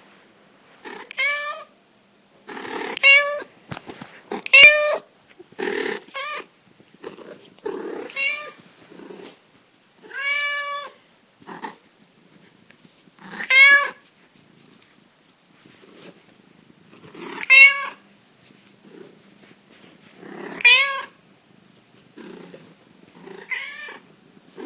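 Black cat meowing over and over, about ten meows a couple of seconds apart, each rising and then falling in pitch, with softer low rough sounds between them.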